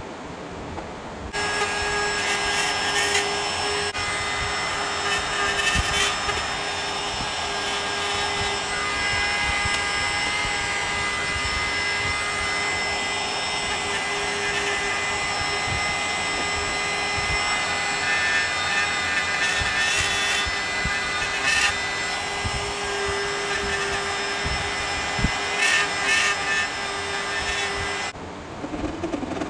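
Cordless rotary cut-out tool spinning up about a second in and running at a steady high pitch as its bit cuts around the edge of a gauge hole in the car's dash panel, with short scratchy spikes where the bit bites harder. It cuts off just before the end.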